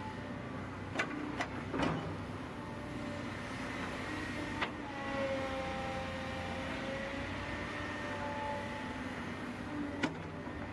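Volvo EC210BL tracked excavator working at steady engine speed, with its hydraulics whining in several tones that shift in pitch as the boom and bucket move through the clay. A few sharp metallic clanks sound about a second in, once near the middle and once near the end.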